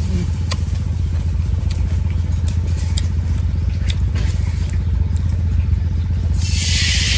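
A steady, low engine drone with a fast even pulse runs throughout, with a few light clicks now and then. About six and a half seconds in, a loud hiss sets in and keeps going, like food sizzling in hot oil in a wok.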